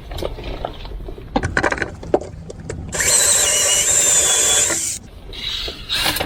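Conduit and its 90-degree connector being worked into a fuse-box knockout hole: a few clicks and knocks, then about two seconds of loud scraping and rubbing as the fitting is pushed into place, stopping suddenly.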